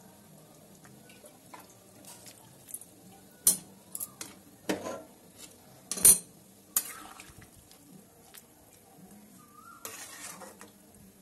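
Metal spatula scraping and clinking against a metal kadai while stirring chicken gravy: a string of separate scrapes and knocks, the loudest about six seconds in.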